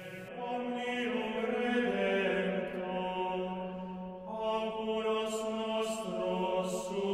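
Closing music: a slow sung chant with voices holding long notes that shift only every few seconds.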